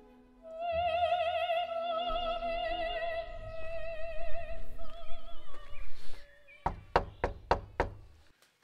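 Operatic music, a voice holding long notes with wide vibrato, which stops about six seconds in. A quick series of about five knuckle knocks on a door follows.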